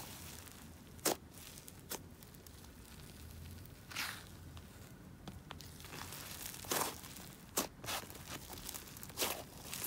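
Sizzly butter slime being pressed and stretched by hand, giving off short crackling sizzles now and then, about seven in all.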